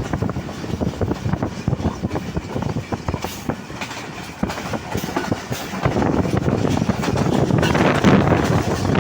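Moving train: wheels clicking and clattering over the rails with a steady rushing noise, which grows louder about six seconds in.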